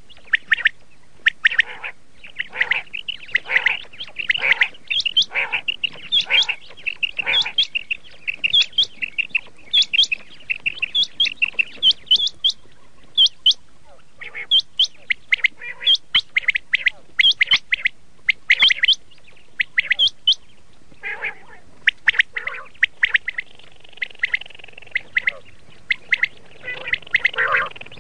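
Quail calling: short, sharp, high notes repeated rapidly in clusters, with brief gaps between runs and calls overlapping at times.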